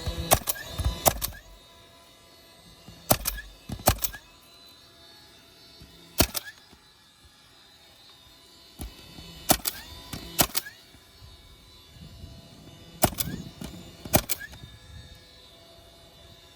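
Sharp clicks or knocks, mostly in pairs, coming every few seconds with quiet between them.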